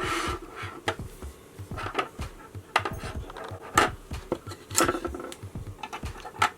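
Background electronic music with a beat, under scattered sharp clicks and clatters.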